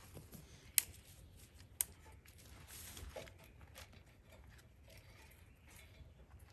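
Two sharp knocks about a second apart, amid faint rustling and handling sounds.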